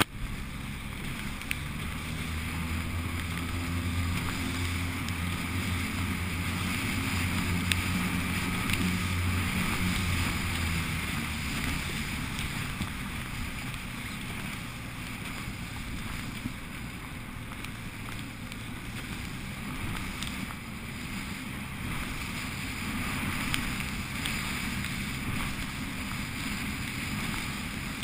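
Wind buffeting the microphone and choppy water splashing against an inflatable boat's hull as it motors along, with the low hum of its outboard motor for about the first twelve seconds, then fading.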